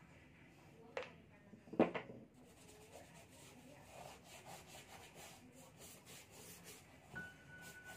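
A few sharp knocks in the first two seconds as a plastic squeeze bottle of paint is handled and set down on a wooden table. Then the faint, repeated scratching of a small paintbrush dragging paint across a canvas. A single steady musical tone comes in near the end.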